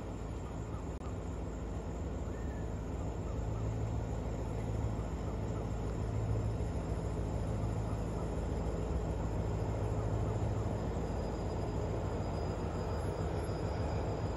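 Alsthom diesel-electric locomotive No. 4420 drawing slowly closer with a passenger train, its engine a steady low hum that grows gradually louder as it approaches.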